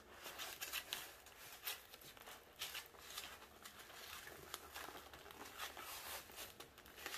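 Faint scattered clicks and rustling of a snowmobile's plastic cover being worked into place by hand over the wiring harness.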